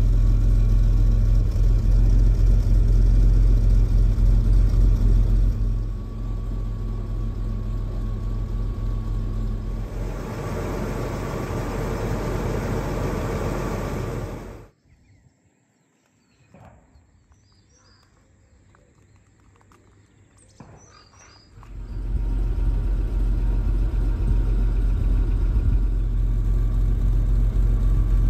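Jaguar XJ6 4.2's straight-six engine idling steadily at the exhaust. About halfway through it cuts out abruptly for around seven seconds, leaving faint birdsong, then the idle returns.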